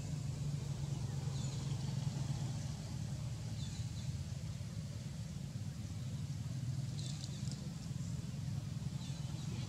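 Outdoor ambience: a steady low rumble with a few faint, short high chirps scattered through it, including a quick cluster about seven seconds in.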